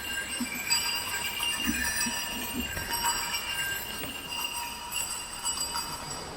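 Several cowbells clanking and ringing at once: many overlapping high ringing tones with irregular knocks from the clappers.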